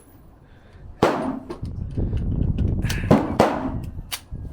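Three gunshots, each ringing out with a trailing echo: one about a second in, then two in quick succession about two seconds later.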